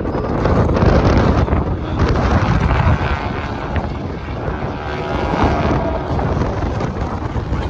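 Aircraft engine running as a display plane passes, under heavy wind buffeting the microphone.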